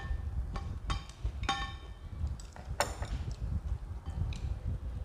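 Tableware clinking: chopsticks and a spoon tapping against plates and a glass sauce bowl, several separate clinks with a short ring, the sharpest about three seconds in, over a steady low rumble.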